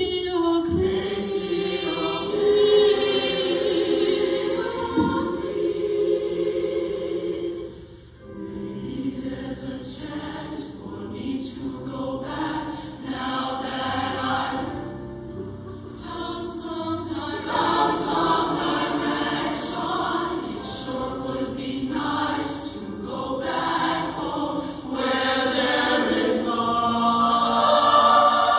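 A large show choir singing together, with a sharp drop in level about eight seconds in before the singing builds back up.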